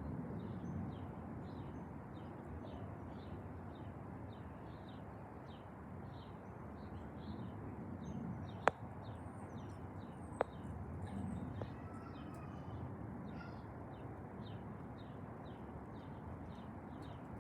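Distant jet engine rumble, swelling and easing, with a bird chirping rapidly about three times a second over it. Two sharp clicks come a little before and a little after the middle.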